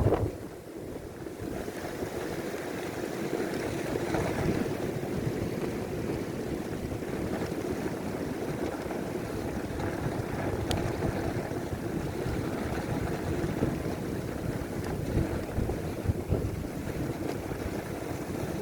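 Steady wind and road noise rushing across the microphone while riding a bicycle through a snowstorm.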